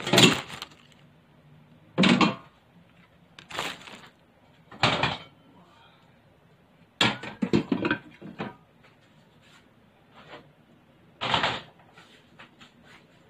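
Kitchen handling noises: about six short bursts of clatter and rustle, a second or two apart, with quiet in between.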